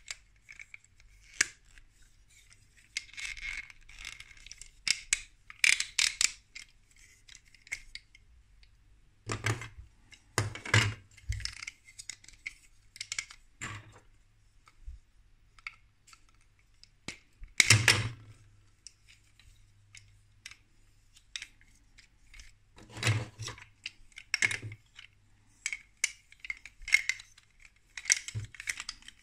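Plastic Lego Duplo bricks and parts being handled and fitted together: rubbing and scraping of plastic with scattered clicks and knocks, the sharpest knock a little past the middle.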